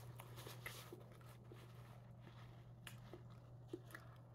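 Near silence: room tone with a faint steady low hum and a few faint scattered clicks.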